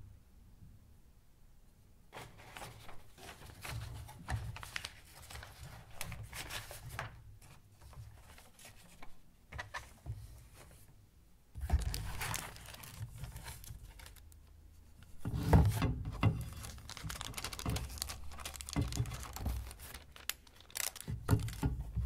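Paper sleeves rustling and crinkling as glass-plate negatives are handled and shuffled in a cardboard box, with small clicks and knocks. The handling starts about two seconds in and gets louder about halfway through and again a few seconds later.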